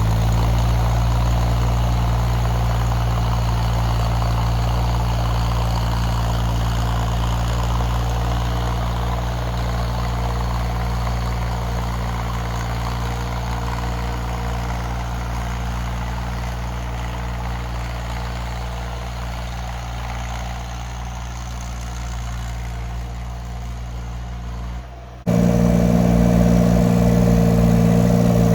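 A 2-ton Chinese mini excavator's engine running steadily as the machine travels, slowly growing fainter, then suddenly much louder about 25 seconds in.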